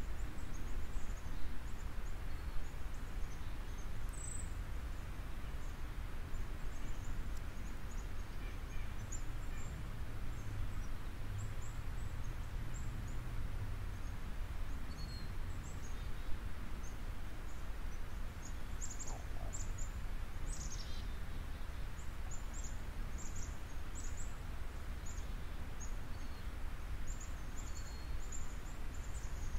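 Background ambience: a steady low rumble with small birds giving short, high chirps, more often in the second half.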